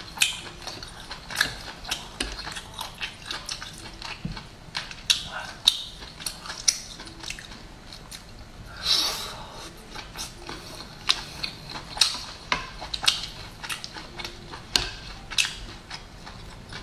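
Close-up eating sounds of a cooked lobster picked apart by hand: irregular sharp clicks and crackles of shell and meat being pulled, with mouth sounds of chewing, and one longer hiss about nine seconds in.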